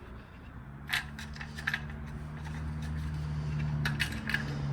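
Light clicks and scrapes of an HEI distributor cap's spring-loaded J-hook latches being handled and pressed into place, a few separate clicks. Under them a low steady hum grows slowly louder.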